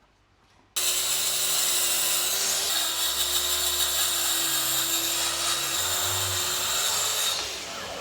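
Track saw running and cutting through wood. It starts abruptly about a second in with a steady motor note under the cutting noise, and the level drops somewhat near the end.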